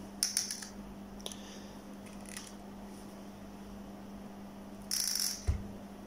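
DMC AF8 (M22520/1-01) ratcheting hand crimp tool clicking as its handles are squeezed to crimp a contact onto a wire: a quick run of clicks near the start, then a single click about a second in. Near the end there is a short rustle and a low thump, all over a steady low hum.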